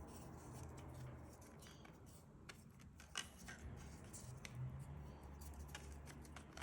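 Near silence with a few faint clicks from 3D-printed plastic headphone parts being handled, over a low steady hum.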